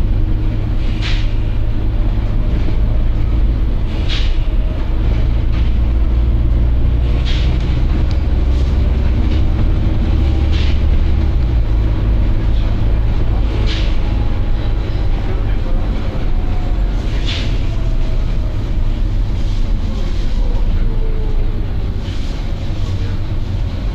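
Volvo B9TL double-decker bus running with a steady low rumble, with a short air hiss from its air system about every three seconds. A faint whine falls in pitch near the end.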